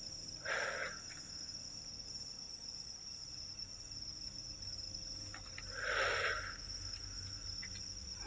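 Steady high-pitched chorus of crickets, with two short hissing sounds, one about half a second in and one about six seconds in.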